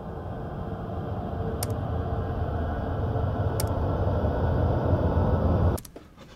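Horror-film tension drone: a low rumble swelling steadily louder, with two faint clicks along the way, then cutting off abruptly near the end, leaving near silence before the scare.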